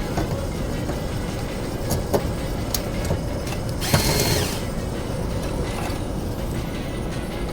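Steady low hum of a running air-conditioner air handler, with a few sharp clicks and a brief scraping rush about four seconds in as its cover panels are handled during reassembly.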